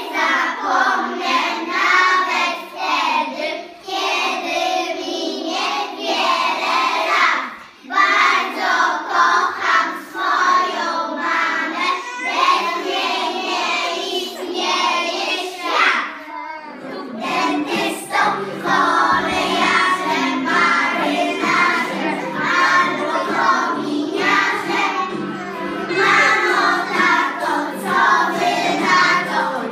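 A group of preschool children singing a song together. The sound grows fuller and lower about halfway through.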